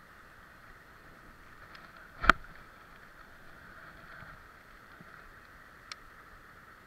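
Steady hiss of flowing creek water, with one loud sharp knock a little over two seconds in and a smaller click near the end.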